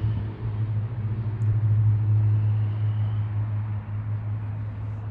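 A machine running with a steady, unchanging low hum.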